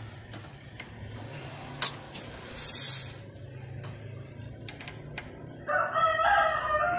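A rooster crowing near the end, one loud drawn-out call lasting about a second and a half. Before it, light clicks and a brief hiss of soldering work as a wire is soldered onto a potentiometer lug.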